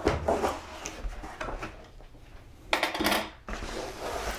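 A cardboard box holding a table saw sled kit being opened on a cast-iron saw table: cardboard scraping and rubbing, with light clinks of parts inside. The handling is loudest about three seconds in, as the lid is lifted.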